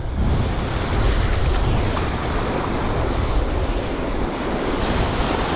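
Sea waves washing and breaking in shallow water, with wind buffeting the microphone as a steady low rumble.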